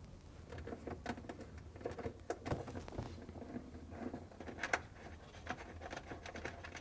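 Faint, irregular clicks and small rattles of hand work on the plastic ice maker and its mounting screws with a 1/4 inch nut driver.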